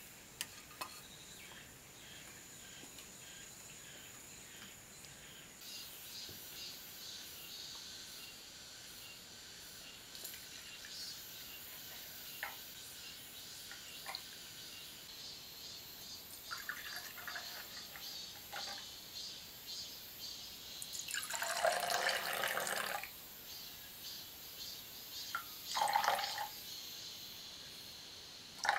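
Red shiso-leaf juice poured in a thin stream into glass tumblers, the liquid trickling and splashing into the glass, with the loudest pours about three-quarters through and again near the end.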